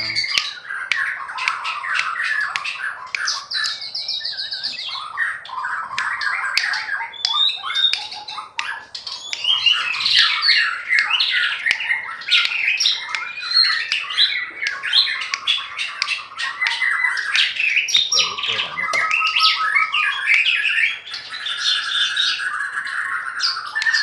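White-rumped shama (murai batu) singing without pause, a rapid, varied stream of whistled and scratchy notes mixed with short clicks.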